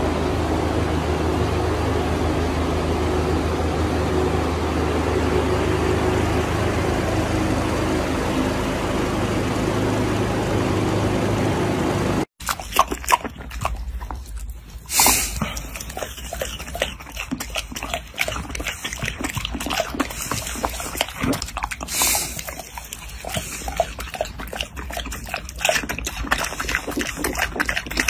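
A steady hum for about twelve seconds, then it cuts off. A piglet chewing and smacking on a strawberry follows, with many quick wet clicks and two louder short noises, a few seconds apart.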